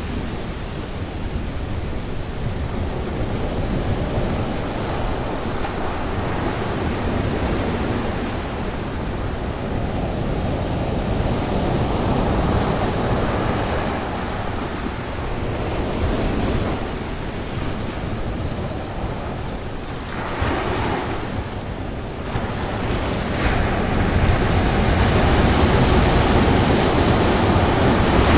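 North Sea surf breaking on a beach, mixed with wind buffeting the microphone. The steady rush swells and eases, growing louder near the end.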